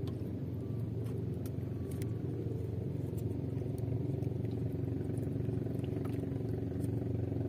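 A small boat engine running steadily at an even idle, with a few faint clicks as the longline is hauled in.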